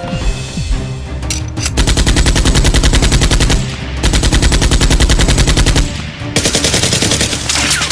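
Automatic-gunfire sound effect, three bursts of rapid machine-gun fire of about two seconds each, dubbed over a Nerf blaster fight. Background music plays underneath.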